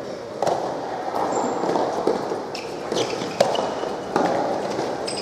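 Soft tennis rally: rackets striking the soft rubber ball and the ball bouncing on the hard court, a series of sharp hits roughly every half second to a second, echoing in an indoor hall.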